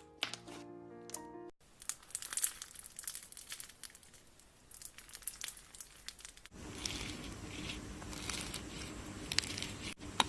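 A short run of music notes, then slime being pressed and worked in the hands, giving a dense fine crinkly crackling with sharper clicks and pops. About six seconds in it turns louder and noisier, over a low hum.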